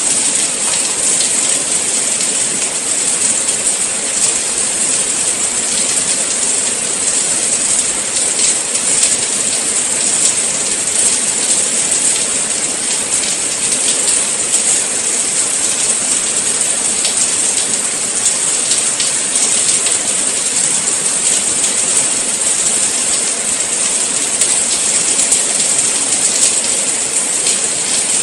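Steady rain falling, a dense even hiss with the patter of many individual drops.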